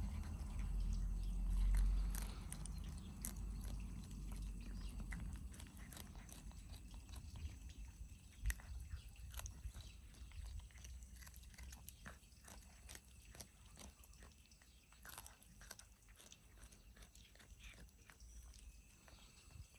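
Kittens chewing small fish: an irregular run of small crunches and clicks, with a low rumble over the first two seconds or so.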